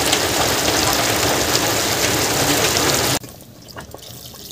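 Mutton curry sizzling and bubbling hard in an aluminium pot, a steady loud hiss that cuts off suddenly about three seconds in. Then water is poured into the pot, much fainter.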